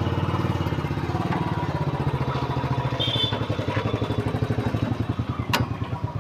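E-rickshaw rear axle drive running with a rapid, steady rhythmic 'khar khar' grinding, the noise of a worn, cut axle spline, with one sharp click about five and a half seconds in.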